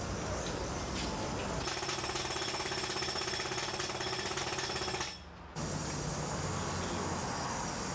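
Machinery with a fast, even mechanical rattle, breaking off abruptly about five seconds in, followed by steady background noise.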